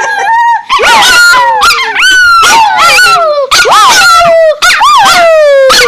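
Dog howling and yowling in a rapid string of loud, high-pitched calls, each starting sharply and then sliding down in pitch.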